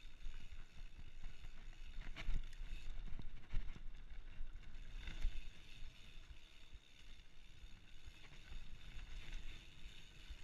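Specialized Stumpjumper FSR Camber full-suspension mountain bike riding a dirt singletrack: steady rumble of tyres rolling over dirt and leaf litter and wind on the camera microphone, with a few sharp knocks and rattles as the bike hits bumps.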